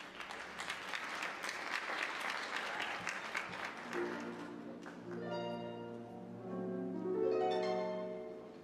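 Audience applauding for about four seconds, then recorded orchestral music begins with sustained string notes over a steady bass, swelling toward the end.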